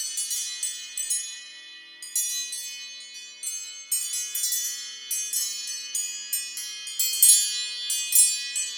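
Wind-chime alarm tone: many light, high-pitched chime strikes at irregular intervals, each ringing on and overlapping the next. The strikes thin out about two seconds in, then pick up again.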